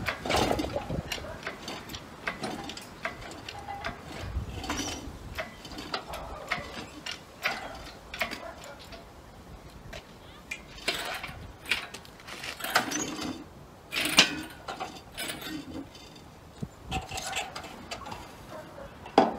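Irregular metal clinks and knocks, some ringing briefly, with a jangle of chain, from work on a car's rear axle slung from an engine hoist's chain.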